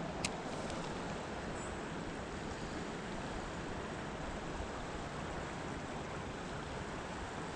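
Creek water rushing steadily. A single brief click sounds about a quarter second in.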